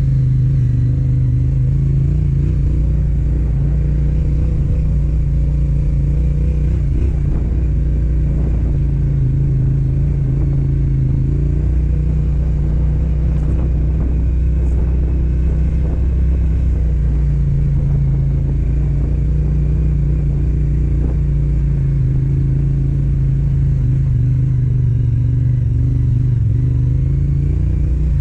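Yamaha Ténéré 700's parallel-twin engine running at steady low revs, its note wavering slightly as the throttle changes.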